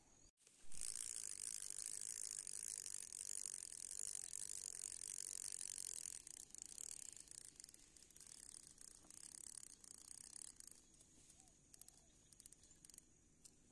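Fishing reel being cranked to wind in line, a fast ratchety whirr that starts suddenly, runs steadily for about five seconds, then turns stop-start and fades out near the end.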